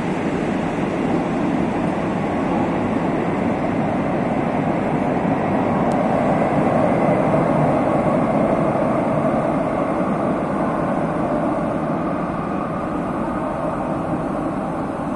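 Madrid Metro series 2000A electric train pulling out and running off into the tunnel: a steady rumble of wheels on rail that swells a little midway, then eases slightly as the train recedes.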